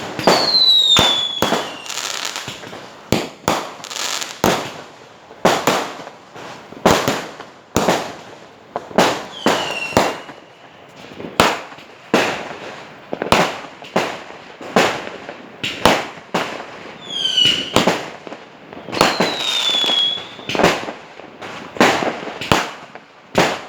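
Aerial fireworks going off in a steady series of loud bangs, roughly one every second, with a few short whistles falling in pitch just before some of the bursts.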